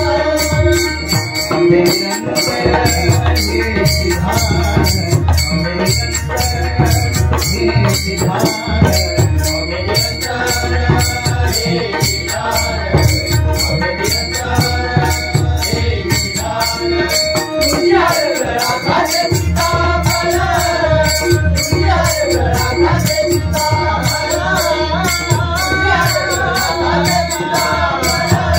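Instrumental bhajan interlude: pakhawaj and tabla drumming in a steady rhythm under a dense, even jingling of small hand cymbals, with a melody line that winds up and down in the second half.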